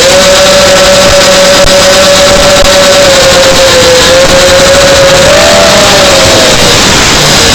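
A model airplane's motor and propeller running at a near-steady whine, with a rush of air noise, recorded up close. The pitch dips and rises a little with throttle, and about five seconds in a second, slightly higher tone wavers alongside it for a moment.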